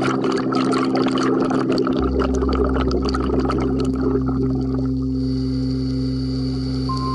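Background music of long held chords over a low bass note, the chord shifting about two seconds in and again near the end. For the first five seconds a dense crackling, water-like sound lies over it, then stops.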